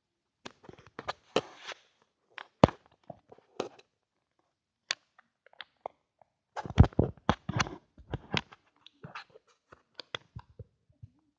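Irregular clicks, knocks and rustling from a phone being handled and moved about, with a dense run of heavier knocks a little past the middle.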